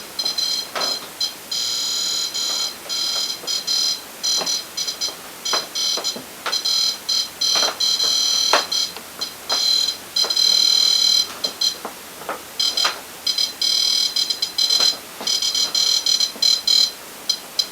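Electronic ghost-hunting detector alarm sounding in irregular bursts of a shrill high electronic tone, cutting in and out many times, with scattered faint clicks between.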